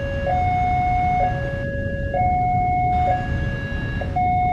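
Railway level-crossing warning alarm sounding its two-tone electronic signal, switching between a low and a high pitch about once a second: the warning that a train is approaching. Under it runs a low rumble.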